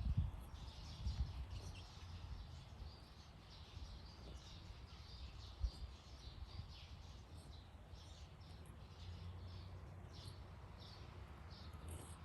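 Small birds chirping over and over, over a steady low outdoor rumble, with a few low bumps near the start and again near the middle.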